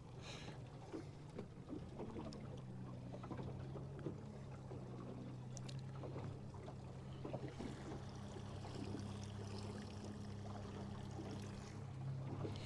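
Outboard motor running steadily at trolling speed, a low even hum, with water washing along the hull and wake.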